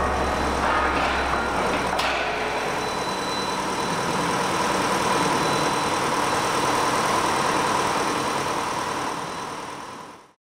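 Steady machinery noise of a steel-section processing line running, with a sharp click about two seconds in. Background music trails off in the first seconds, and the sound fades out near the end.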